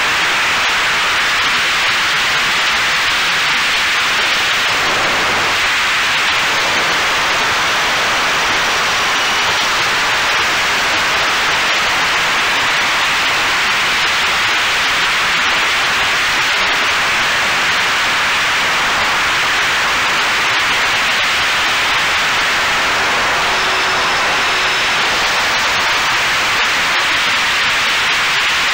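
Steady, loud rush of airflow and propeller noise picked up by a camera in the cockpit of a flying radio-controlled OV-10A Bronco model.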